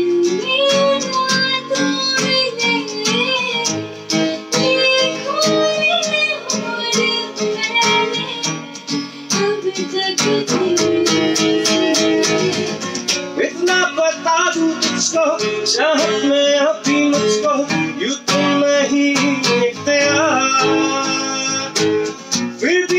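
Acoustic guitar strummed in a steady rhythm, with a voice singing a gliding melody over it.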